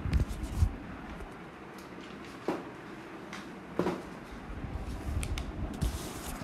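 Two short knocks about a second and a half apart over a steady hiss of room noise.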